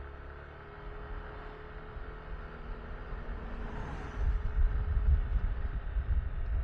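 Yamaha Tricity 155 scooter's single-cylinder engine running on the move, with a steady drone. About four seconds in, heavy wind buffeting on the camera's microphone comes in and grows louder as the scooter picks up speed.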